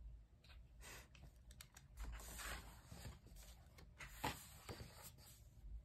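Pages of a coloring book being turned by hand: faint paper rustling with scattered light ticks, and a sharper tick about four seconds in.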